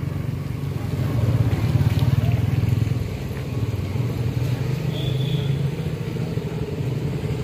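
A vehicle engine running steadily with a low, even hum, with a brief faint high tone about five seconds in.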